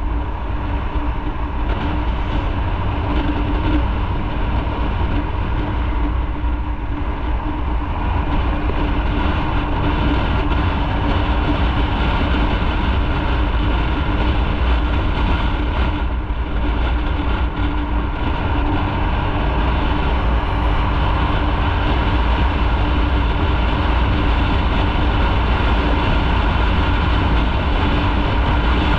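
Motorcycle engine running at a steady cruise, with a constant low rumble of wind on the microphone.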